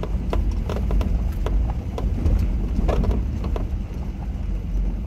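Heard from inside the cab, a vehicle drives over a rutted dirt road with a steady low rumble. Frequent short knocks and rattles sound as it bumps along.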